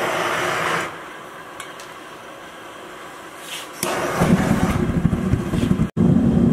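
A hand-held gas torch hisses at the mouth of a gas forge. About four seconds in, the forge's blower-fed gas burner lights and runs with a steady low rumble.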